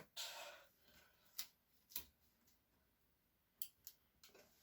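Faint handling noises from small laptop parts: a brief rustle at the start, then a handful of separate small clicks and ticks, the kind made by plastic connectors and panels being worked loose.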